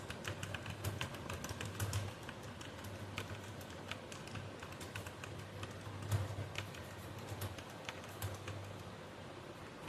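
Computer keyboard being typed on: rapid, uneven keystrokes, several a second, each a sharp click with a low thud.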